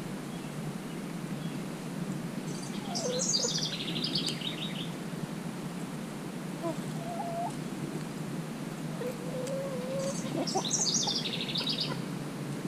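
A wild songbird sings twice, each song a quick trilled phrase that steps down in pitch. Between the songs come a few soft, low, wavering calls from the hens.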